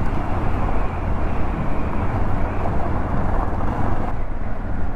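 Yamaha XT600E's single-cylinder engine running steadily as the motorcycle is ridden off-road, with a rushing noise over it that eases about four seconds in.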